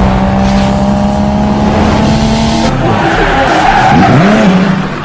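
Car sound effect: an engine held at one steady pitch, then tyres skidding and squealing with a wavering pitch from a little under three seconds in, fading near the end.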